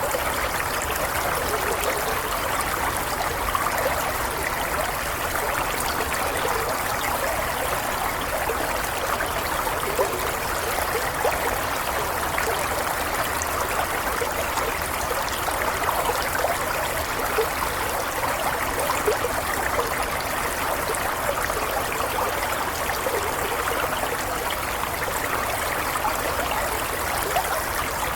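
Water flowing and trickling steadily, with a constant babbling rush and small splashes throughout.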